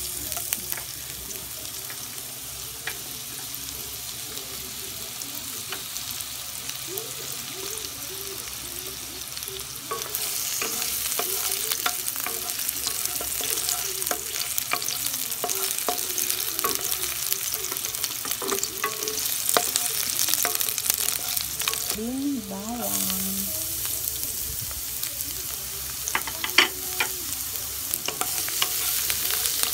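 Sliced red onions sizzling in hot oil in a pot, stirred with a wooden spatula that scrapes and taps against the pan. The sizzle grows louder about ten seconds in, and a few sharper knocks of the spatula come near the end.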